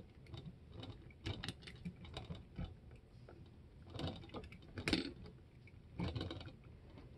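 The small winch of a 1:87-scale WSI Liebherr LTM 1750-9.1 model crane being wound in by hand, reeling up the hook line. It gives faint, irregular clicks in short bursts.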